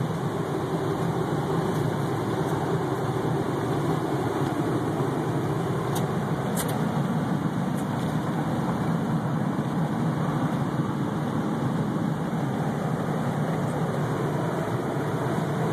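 Steady road and engine noise heard from inside the cab of a vehicle driving at highway speed.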